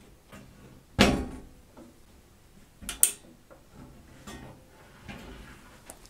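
Handling knocks and clicks as a white plastic fan pulley wheel is fitted onto its spindle over a new PTFE washer on the microwave's sheet-metal top. The loudest knock comes about a second in, a sharp click about three seconds in, with a few lighter taps between.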